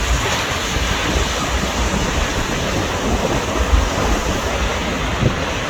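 Sea surf washing onto a beach in a steady rush, with wind buffeting the microphone in uneven low gusts.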